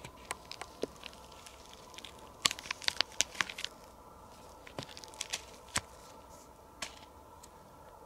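Sharp, dry crackles and snaps. They come in a dense cluster about two and a half to three and a half seconds in, then a few more around five to six seconds and a last one near seven seconds.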